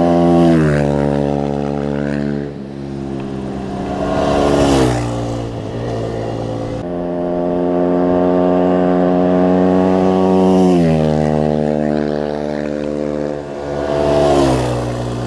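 Motorcycle engine running at steady revs, its pitch dropping as the throttle is rolled off about half a second in and again about two-thirds of the way through. Wind rushes over the microphone in two gusts.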